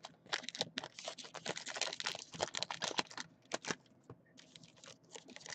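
Trading cards being handled and packs opened: quick clicks of card edges and wrapper rustles, dense at first and thinning out to a few faint clicks about three and a half seconds in.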